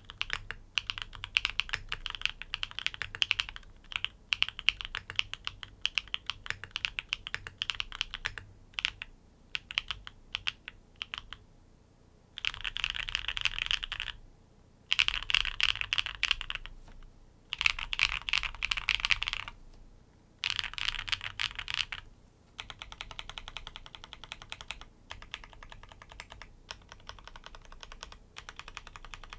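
NEO80 mechanical keyboard with tactile switches, mounted on gasket dumbbells, being typed on: runs of quick keystrokes in bursts separated by short pauses. The strokes turn lighter and more even about two-thirds of the way through.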